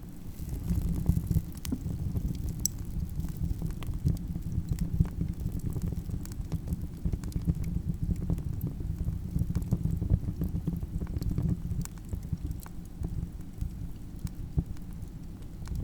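Campfire burning, with frequent irregular sharp crackles and pops over a steady low rush of the flames. It grows louder about half a second in.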